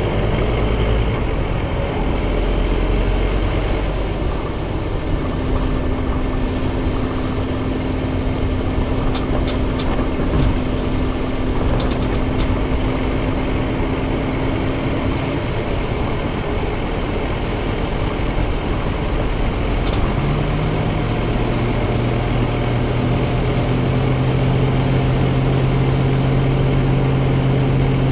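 Scania CN270UB city bus heard from inside the passenger cabin while under way: steady engine and road noise. A held hum runs from about five to fifteen seconds in, and a deeper hum comes in at about twenty seconds and holds. A few brief rattling clicks sound around ten to twelve seconds in and again at about twenty seconds.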